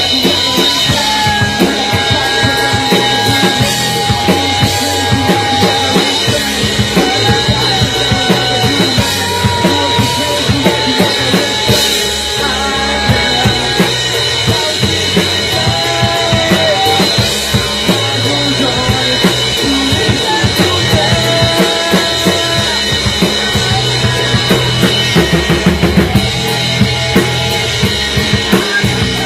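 Rock band demo recording: a drum kit with bass drum and snare keeps a steady driving beat under held low bass notes and sustained melodic lines.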